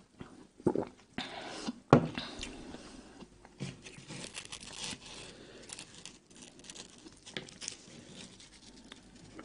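Gulps from a drink and a sharp knock about two seconds in, then crisp crackling and tearing as the baked crust of Egyptian hawawshi (meat-stuffed baladi bread) is pulled apart by hand over cardboard.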